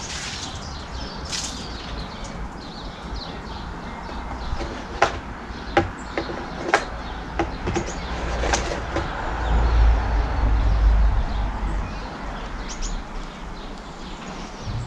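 Scattered sharp knocks and clatter of plant pots and garden things being handled and set down, with a low rumble for a couple of seconds in the middle.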